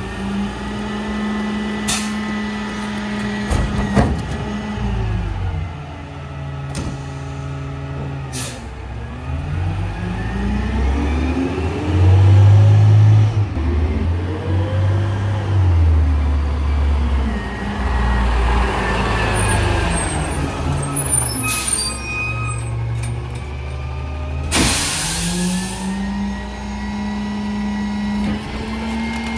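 Rear-loader garbage truck's diesel engine running, revving up and down repeatedly as the hydraulic packer cycles, with metal clanks. A loud air-brake hiss comes near the end.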